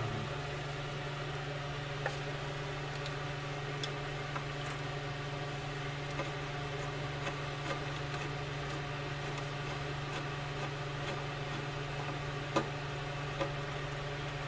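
A steady low mechanical hum, with scattered light clicks and taps of small metal parts and screws being handled.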